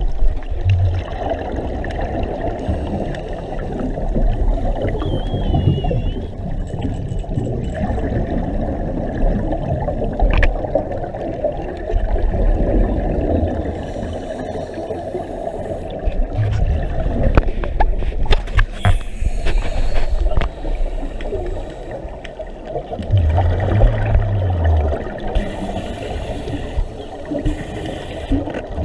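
Scuba divers' exhaled air bubbling from their regulators, picked up underwater through a camera's waterproof housing as a steady, muffled, low rush of water noise.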